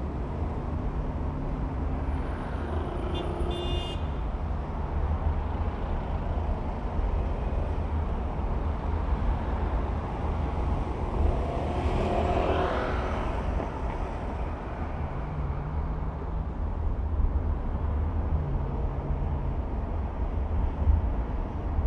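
Car driving through city traffic: a steady low rumble of road and engine noise, with another vehicle passing about twelve seconds in. A brief high-pitched electronic tone sounds about three seconds in.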